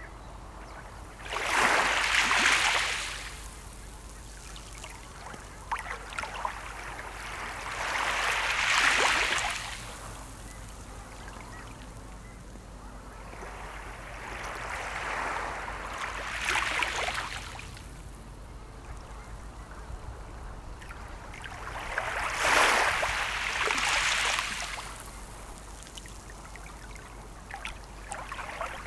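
Sea waves washing onto the shore: four surges of water, about every six or seven seconds, each swelling and falling away, with a steady hiss between them.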